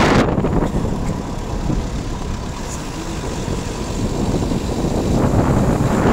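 Wind rushing over the microphone with a vehicle's low road rumble. It eases after the first half second and builds again near the end.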